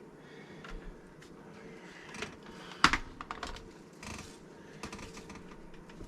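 Small hard objects being rummaged through by hand: scattered light clicks and rattles, with one sharper knock a little under three seconds in.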